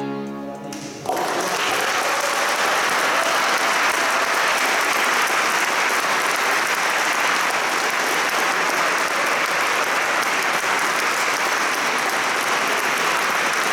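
The last chord of a Pigini concert button accordion dies away in the first second, then an audience breaks into applause about a second in, steady and sustained.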